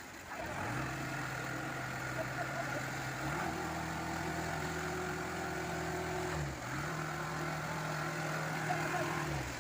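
Low, steady mechanical drone, engine-like, that starts about half a second in, steps up in pitch after about three seconds, dips briefly and recovers around six and a half seconds, and cuts off shortly before the end.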